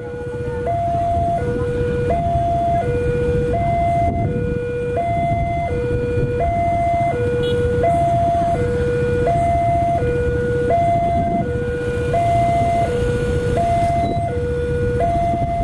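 Railway level-crossing warning alarm sounding from its horn loudspeaker: a two-tone signal, a higher and a lower tone alternating about every three quarters of a second, with a steady low rumble underneath. The alarm signals that a train is approaching the crossing.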